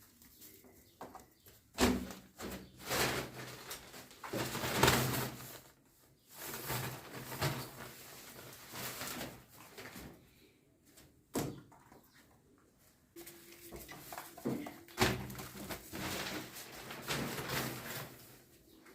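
Cats growling and hissing at each other in a scuffle: low drawn-out growls under repeated harsh hissing bursts, with short quiet gaps between flare-ups.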